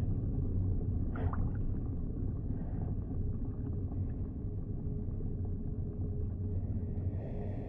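Low, steady underwater rumble, a deep ambient drone, with a brief faint tonal chirp about a second in and a faint high tone rising in near the end.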